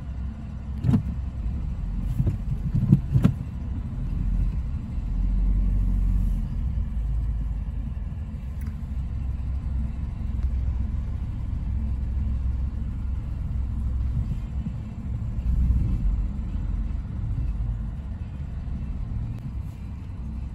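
Steady low rumble of a car in slow traffic, heard inside the cabin, with a few sharp clicks and knocks near the start.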